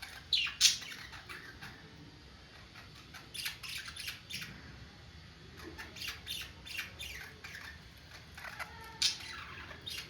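Budgerigars calling, a run of short, harsh squawks and chirps in several clusters, the loudest near the start and about nine seconds in.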